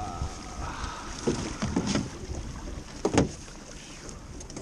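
Drift gillnet being hauled hand over hand into an aluminum skiff, with several sharp knocks as the net, floats and lead line strike the hull. The loudest knock comes about three seconds in, over a steady rumble of wind and river water and a short high tone at the very start.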